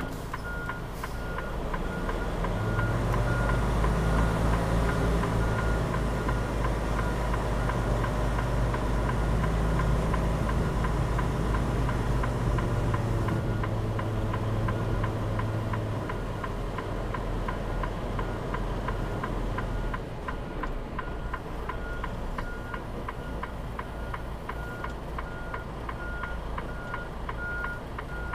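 Semi-truck diesel engine pulling at low speed, its drone rising about two seconds in and easing off after about sixteen seconds. A faint high beep and light regular ticking repeat throughout.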